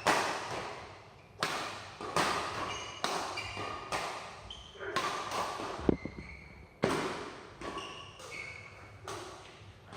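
A series of sharp knocks, about one a second, each with a short high ringing tail and a reverberant decay.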